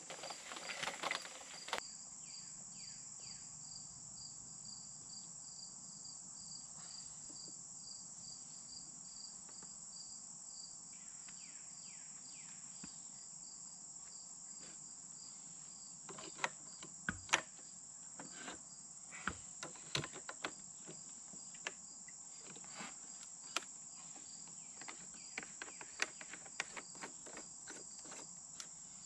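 Steady chorus of insects with a regular pulsing trill. From about halfway on, scattered sharp clicks and knocks of PVC pipe fittings being handled and pushed together on a pool pump.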